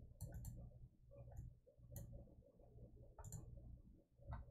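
Faint, scattered clicks of a computer mouse, about half a dozen at irregular intervals, over a low room hum.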